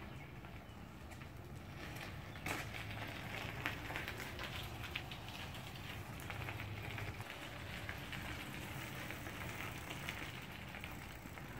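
Bicycle tyres crunching and crackling over a gravel driveway as a bike rolls past, with a couple of sharper clicks from the stones.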